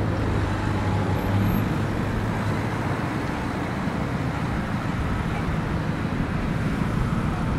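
City street traffic: car engines and tyres passing close by, a steady low noise, with a low engine hum that fades out about a second and a half in.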